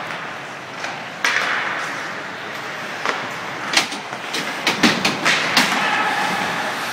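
Ice hockey play: skates scraping and carving on the ice, with sharp clacks of sticks and puck, several in quick succession past the middle.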